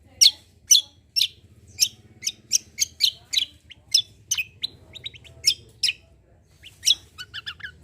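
Kecial kombo (cucak kombo) songbird singing a loud, chattering song of sharp, downslurred whistled notes, about two a second, with a quick run of short chirps near the end.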